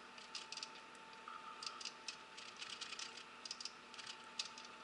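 Basting brush dabbing and spreading thick glaze over fish fillets on a foil-lined sheet pan: faint, irregular light clicks and sticky ticks.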